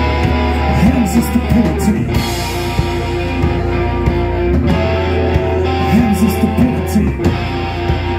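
Live rock band playing loud: electric guitars over drums.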